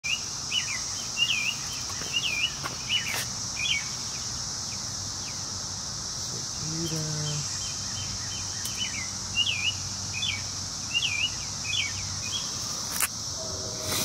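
Steady high-pitched drone of a periodical cicada chorus, with a small bird chirping repeatedly over it for the first few seconds and again from about nine to twelve seconds in.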